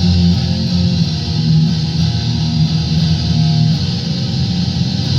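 Loud, heavily distorted electric guitar playing held chords, with bass underneath.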